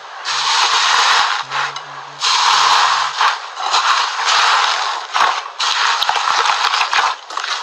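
Slime being squeezed and worked by hand, a dense crackling and popping that comes in several bursts of about a second each with short breaks between.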